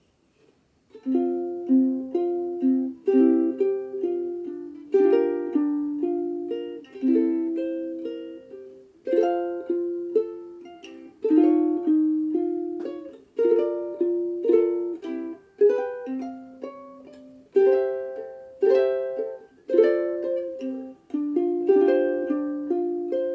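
Sumi UK-3M soprano ukulele, a Honduras mahogany Martin Style 3M replica, played solo: picked notes and chords, each ringing and dying away. The playing starts about a second in.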